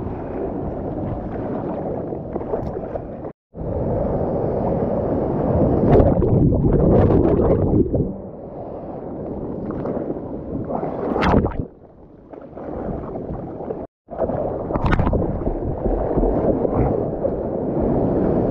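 Ocean water rushing and sloshing around a GoPro held at the surface, with hands stroking through the water and wave whitewater splashing past. There is a sharp splash about 11 seconds in, and the sound cuts out briefly twice.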